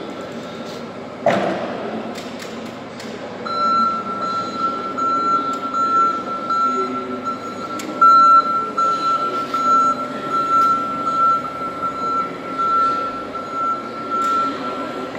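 Linde E15 electric forklift on the move, with a continuous high-pitched warning tone at one steady pitch that comes on a few seconds in and stays on. A single sharp clunk just over a second in.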